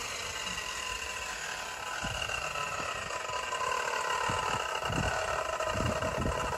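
A motor or engine running steadily, its droning tones sinking slowly in pitch, with low thumps and rumbles in the second half.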